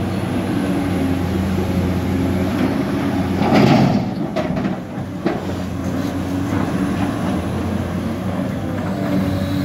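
Caterpillar 329D excavator's diesel engine running steadily as the machine swings. About three and a half seconds in, its bucket load of dirt and broken paving stones drops into the steel bed of a dump truck, followed by a few sharp knocks of stones settling.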